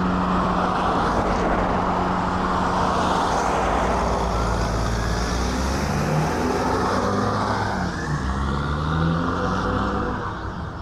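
Car engine and exhaust as a hatchback pulls out of a junction and accelerates past, its note rising through the revs in the middle, then fading as it drives away near the end, with other cars idling behind.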